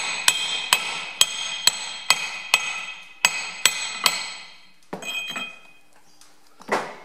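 Hammer blows on a metal pipe held over the half-shaft seal of a Ferguson TE20 rear axle, driving the seal down to sit against the bearing. About ten ringing metallic strikes come at roughly two a second, stopping about four seconds in, followed by a lighter clatter.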